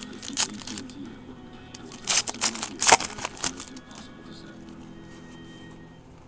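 Trading cards and their packaging rustling and crinkling in a few sharp bursts as they are handled, over quiet background music.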